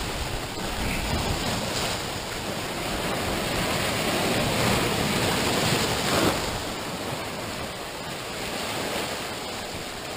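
Sea surf washing over rocks and foaming through a rock pool, a steady wash that swells and peaks about six seconds in, then eases.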